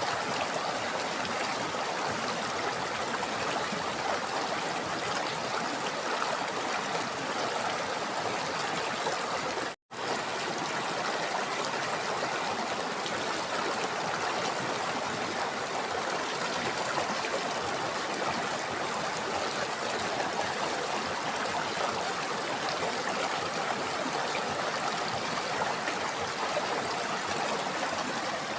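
River water flowing steadily, a continuous rushing and trickling. The sound cuts out completely for an instant about ten seconds in, then resumes unchanged.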